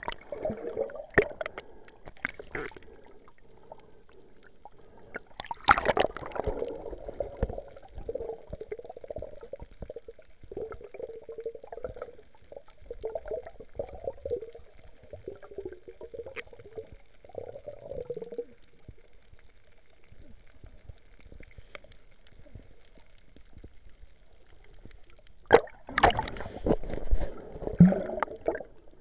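Water gurgling and sloshing, heard muffled underwater. It comes in uneven bursts with quieter stretches between, plus a few sharp clicks.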